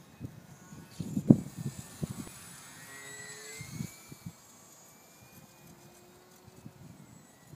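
Small electric motor and propeller of an E-flite UMX Carbon Cub SS RC plane whining faintly in flight, the pitch bending down about three seconds in as it passes. Strong wind rumbles and thumps on the microphone, loudest just over a second in.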